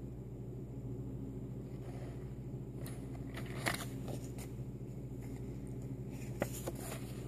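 Paper index cards being handled and set down: a few soft taps and rustles over a steady low hum.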